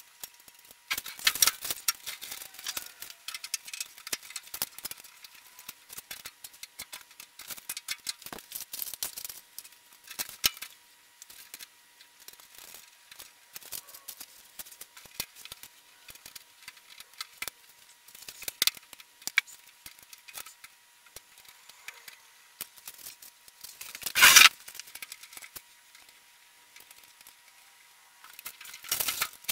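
Sped-up workshop sounds of a sheet-steel blast cabinet being bolted together: a rapid run of clicks, ticks and rattles from bolts, wrenches and steel panels, with one louder clatter about 24 seconds in.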